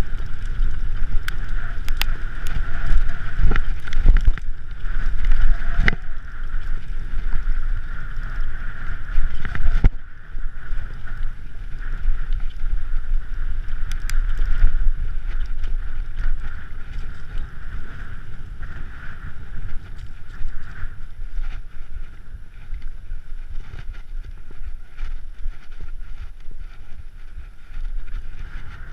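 Mountain bike ridden over a rough trail: a continuous rumble of tyres and wind buffeting the microphone, with sharp knocks and rattles from the bike through roughly the first ten seconds, after which the rumble steadies and drops a little.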